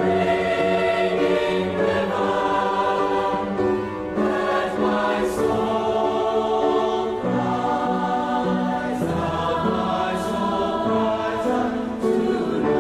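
Choir singing over musical accompaniment: layered voices hold long chords that change every couple of seconds.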